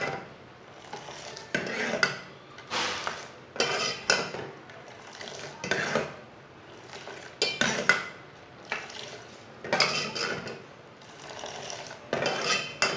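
Kahwa being beaten vigorously in a pot, the stirring utensil clattering against the pot in irregular strokes about once a second, with an occasional short metallic ring.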